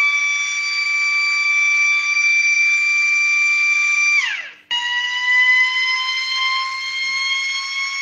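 Small motor-driven metal siren sounding a steady high wail with overtones. About four seconds in its pitch drops steeply and it cuts out for a moment, then it sounds again slightly lower and slowly climbs back up.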